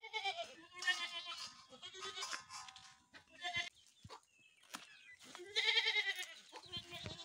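A goat bleating several times. The calls are short and quavering, and the longest and loudest comes about three quarters of the way in.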